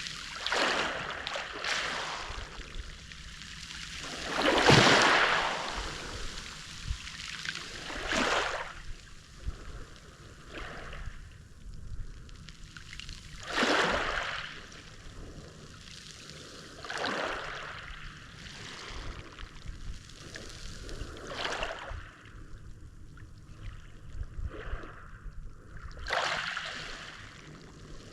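Mediterranean sea waves breaking and washing onto the shore, in separate rushing swells every few seconds, the biggest about five seconds in.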